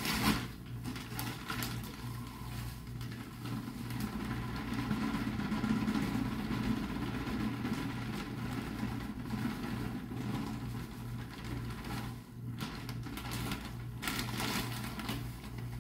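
Miracle-Gro potting mix pouring from its plastic bag into a clay pot: a steady soft rush of falling soil, with brief crinkles of the bag near the start and again near the end. A low pulsing hum runs underneath.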